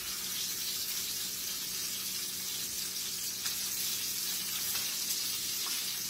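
Salmon fillets searing in grapeseed oil in a hot pan: a steady high sizzle, with a faint low hum beneath it.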